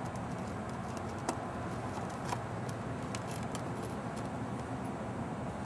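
Light clinks and ticks against a small glass as cut strawberries are put into it, two of them sharper about a second and two seconds in, over a steady low background rumble.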